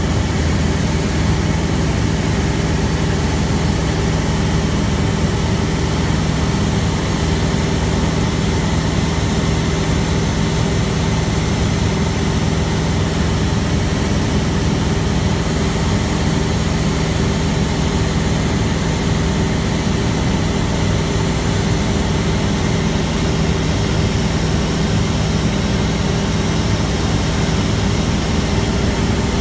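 Cockpit noise of a Van's RV-6A in steady cruise: the single piston engine and propeller make an even drone with a strong low hum, under a constant rush of airflow.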